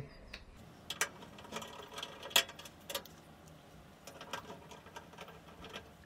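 A hand screwdriver with a T20 Torx bit undoing the side-panel screws of a washing machine: small irregular clicks and ticks of the bit and screws, with one sharper click about two and a half seconds in.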